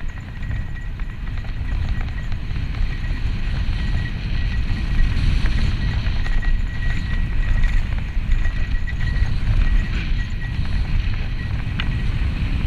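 Wind buffeting the helmet-mounted camera on a fast mountain-bike descent, with the tyres rolling over dirt singletrack and the Santa Cruz Tallboy LTC rattling over the bumps.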